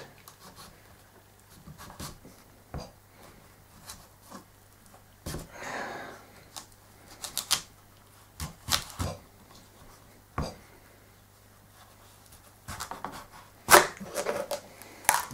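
A large kitchen knife cutting down through a raw butternut squash on a cutting board to halve it: irregular knocks and clicks of the blade and squash against the board, with a longer rasping cut about six seconds in and a quick run of knocks near the end.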